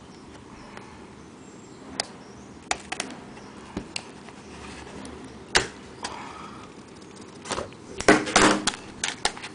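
Scissors snipping through the tape on a small cardboard card-deck box: a few scattered sharp clicks, the loudest about halfway through, then a short burst of rustling near the end as the box comes open.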